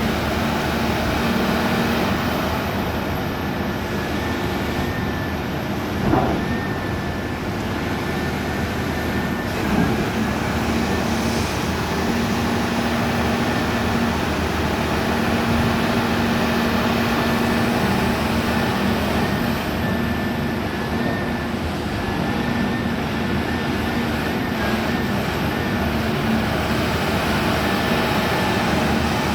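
Caterpillar excavator running steadily: an even engine hum with a thin high whine over it, and two short knocks about six and ten seconds in.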